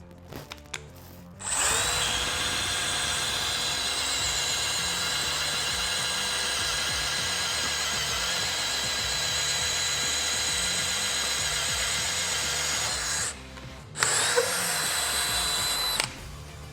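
DeWalt DCD1007 18V brushless hammer drill in first gear, boring with a 32 mm auger bit: the motor runs with a steady whine for about eleven seconds, stops, then runs again for about two seconds near the end.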